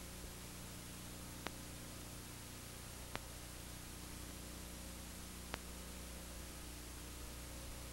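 Steady hiss and electrical mains hum, broken by a sharp click every two seconds or so: the empty noise floor of a silent film's transfer.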